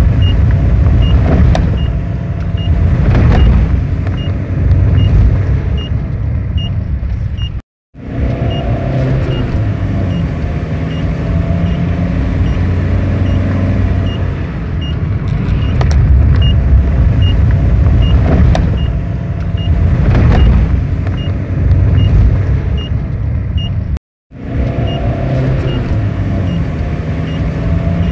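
Renault Kangoo van's engine and road noise heard from inside the cab while driving, the engine tone rising and falling with the throttle. The sound cuts out briefly twice. The van has a fault on acceleration that brings up its engine warning lights.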